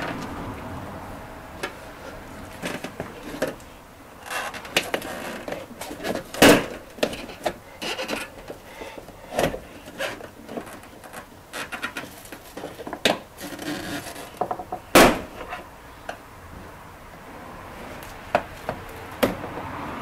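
Plastic clips and press studs being levered out of a Suzuki Jimny's plastic wheel-arch flare with a trim tool: scattered clicks and scraping of plastic on plastic. Two loud sharp snaps stand out, one about six seconds in and another about fifteen seconds in.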